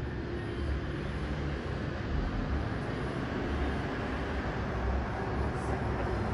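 A steady low rumble with a hiss over it and no distinct bangs: the blended noise of a city at night, with the fireworks too distant to stand out.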